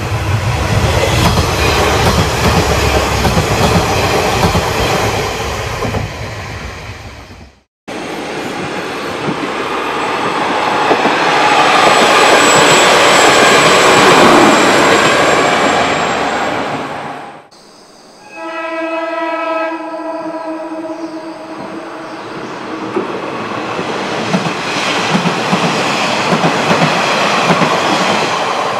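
KiHa 40-series diesel railcars passing close by in three separate takes that cut off abruptly twice: diesel engines running and wheels rolling on the rails, loudest as a train goes by about halfway through. A steady horn blast sounds for about three seconds a little after the second cut.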